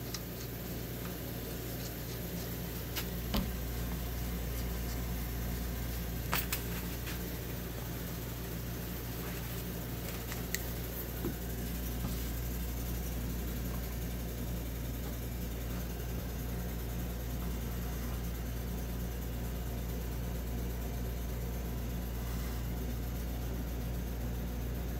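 A steady low machine hum with an even hiss, broken by a few faint light clicks.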